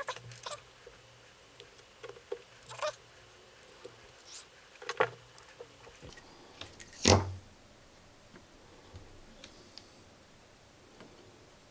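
Scattered light clicks and taps of small electronic components and a circuit board being handled, with one louder knock about seven seconds in.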